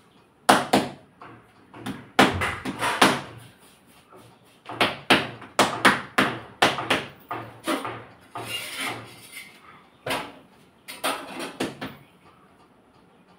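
Hands slapping and patting a ball of roti dough on a stone kitchen counter: a string of sharp, irregular slaps in quick clusters, with short pauses between them.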